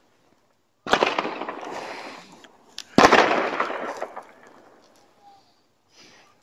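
Two loud firework bangs about two seconds apart, each followed by a long echoing rumble that fades away, with a few faint pops near the end.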